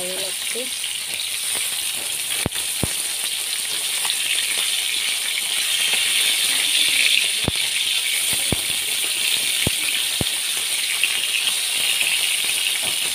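Whole tilapia fish frying in hot oil in a wok, a steady sizzle, with a few sharp clicks scattered through the middle.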